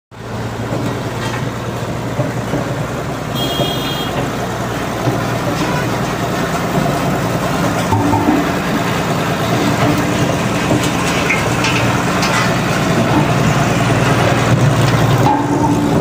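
Old road roller's diesel engine running steadily as the roller drives along, with a short vehicle horn toot about three seconds in.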